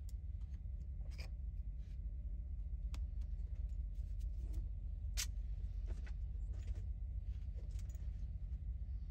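Scattered small clicks and taps from handling small toy parts and tools, about six in all, the loudest a little past the middle, over a steady low hum.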